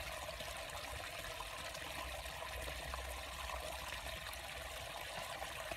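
Steady trickle of running water, an even hiss with a low rumble underneath.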